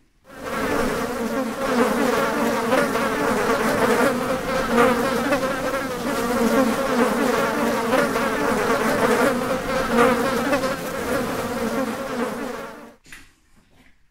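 A large swarm of flies buzzing loudly: a dense, steady drone with a low hum and its overtone. It starts abruptly and cuts off suddenly near the end.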